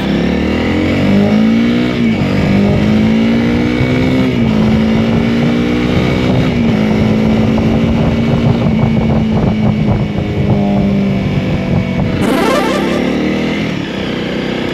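Honda CRF300L's single-cylinder engine pulling away through the gears. The revs rise and drop with an upshift three times, about 2, 4 and 6.5 seconds in, then settle into a steady cruise.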